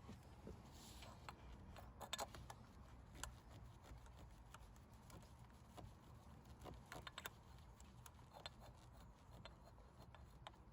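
Faint, scattered clicks and light taps from parts being handled as the thermostat housing is fitted and its bolts are started by hand, over a low steady hum.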